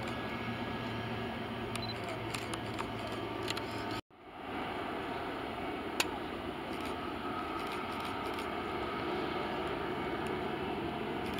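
Boeing C-17 Globemaster III's four turbofan engines running steadily at low power as the transport taxis, an even jet noise. Scattered faint clicks and one sharper click about six seconds in.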